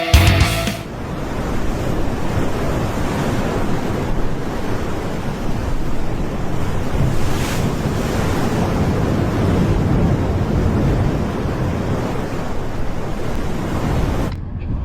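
Steady rushing of wind and surf, with wind buffeting the microphone. It ends with a rock music tail fading out in the first second and cuts off abruptly near the end.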